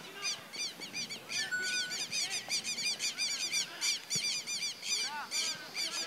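A flock of birds calling: many short, high-pitched calls repeated rapidly and overlapping one another throughout.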